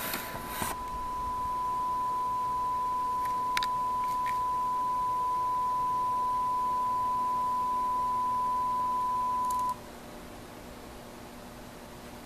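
A single pure, steady test tone like a broadcast line-up beep, held for nearly ten seconds and then cutting off suddenly. A burst of hiss ends within the first second.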